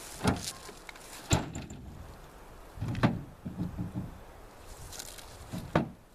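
A few sharp knocks, four loud ones spread over several seconds, with a run of duller low thuds in between.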